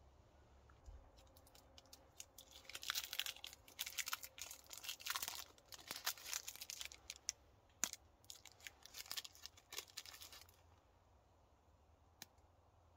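Close rustling and crinkling, a dense run of crisp crackles lasting about eight seconds.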